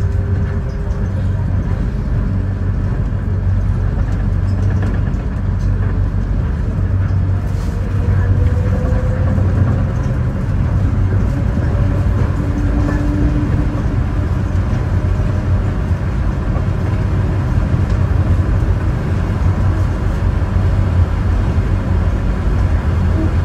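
Sengkang LRT rubber-tyred people-mover train running between stations, heard inside the car: a steady low rumble with faint pitched whines that come and go.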